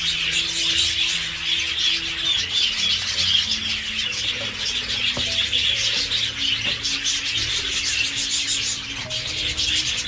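Soft background music with a slow melody of held notes, over a dense, scratchy high-pitched hiss that is the loudest part of the sound.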